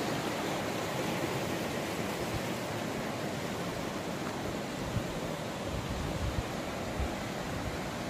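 Steady rushing of flowing river water, with a few soft low thumps in the second half.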